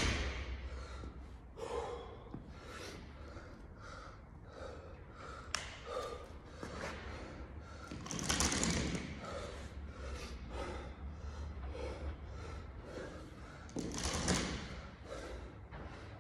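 A man breathing hard after a workout effort, with repeated heavy breaths and two louder exhales about eight and fourteen seconds in, over a steady low hum; a single sharp click about five and a half seconds in.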